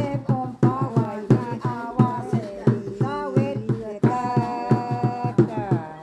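Voices singing a song in an Indigenous language over a steady drum beat, the melody bending and gliding between notes with some longer held notes.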